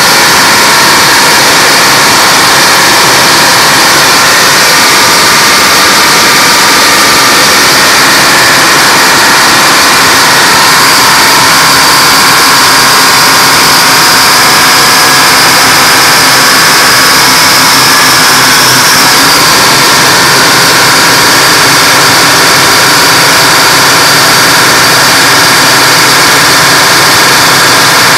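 Siamese Detroit Diesel 6-71 two-stroke diesels driving a generator through a common gearbox, running loud and steady. A high whine climbs slightly and drops back about nineteen seconds in.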